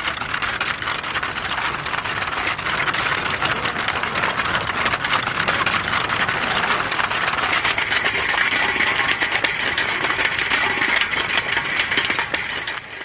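Film projector running: a steady rapid mechanical clatter and whir, with a higher steady whine joining about eight seconds in.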